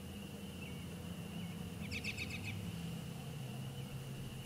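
A steady high-pitched outdoor chorus of small calling animals, with a short fast trill of about eight quick notes about two seconds in and a low hum underneath.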